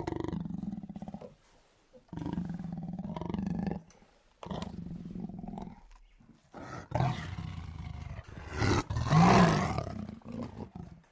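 Lion growling and roaring in angry bouts, each a second or two long with short pauses between, ending in the longest and loudest roar.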